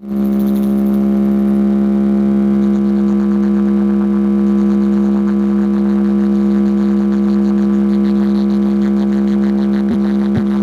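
A DJ competition track with a loud, steady low electronic drone that holds one pitch. Near the end, deep kick-drum hits come in about two a second, each dropping sharply in pitch.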